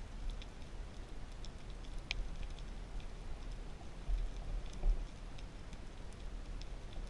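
Underwater ambience: scattered faint clicks and crackles over a steady low rumble, with two louder low thumps about four and five seconds in.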